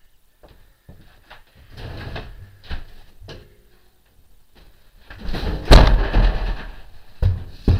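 Knocks and scraping from handling the wooden shipping crate, with a loud clattering bang about five and a half seconds in and another hit near the end.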